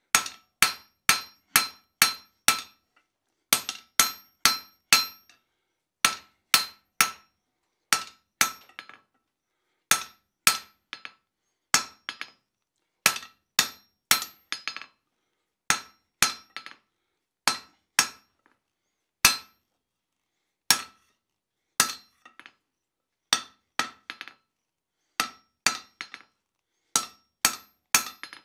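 Hand hammer blows on a red-hot square steel bar against an anvil, drawing out a fire poker shaft. The blows come about two a second in runs broken by short pauses, and each one rings briefly at the anvil's clear pitch.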